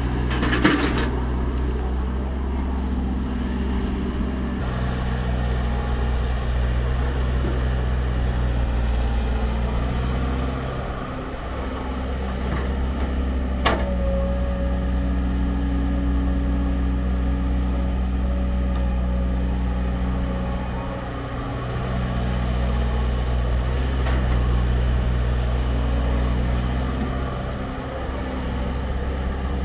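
Diesel engine of heavy construction machinery running steadily, easing off briefly a few times. Three sharp metallic clanks: one near the start, one about halfway, after which a tone rings on briefly, and one at the end.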